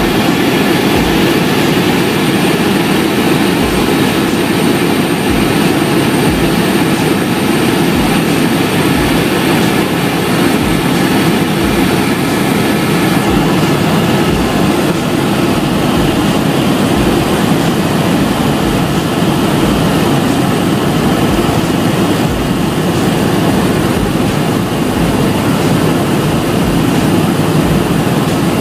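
Helicopter cabin noise in flight: the steady, loud drone of the engine and rotor heard from inside the cabin, with faint steady whining tones above it.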